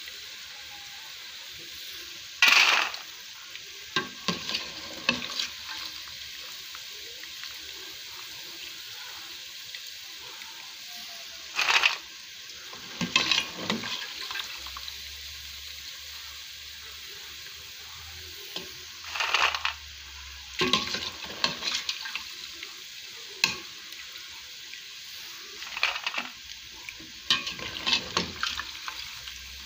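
Chin chin dough pieces deep-frying in hot vegetable oil with a steady sizzle. Every few seconds a metal slotted spoon knocks and scrapes against the pot, sometimes several times in quick succession, as the fried pieces are scooped out.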